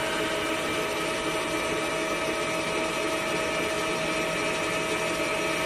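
C6151 lathe running under power: a steady machine whine with several held tones over an even hum.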